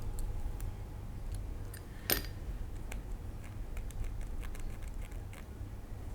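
Small clicks and taps of plastic and metal parts being handled while an RC car shock absorber is put together, with one sharper click about two seconds in.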